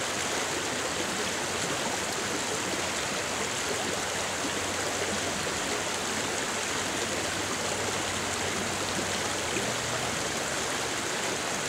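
Creek water flowing with a steady, even rush.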